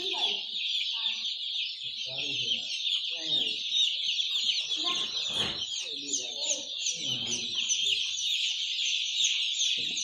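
A large flock of young chicks peeping all at once: a dense, continuous chorus of many overlapping high, short, falling peeps.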